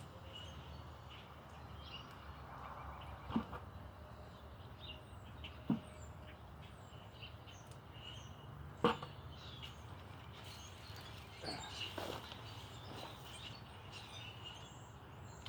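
Birds chirping in the background over a low, steady outdoor rumble. Three sharp knocks come a few seconds apart, and a cluster of softer knocks follows later, from digging and handling potatoes out of a clamp.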